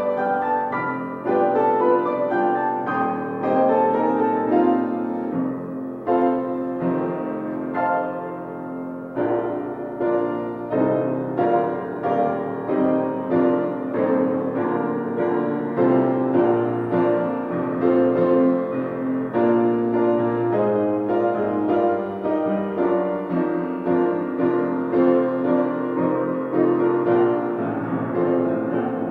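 Piano music played steadily, with a continuous run of notes and chords.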